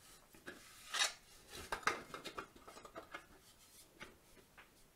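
3D-printed plastic puppet parts being handled and fitted together: a series of light scrapes and knocks, the loudest about a second in.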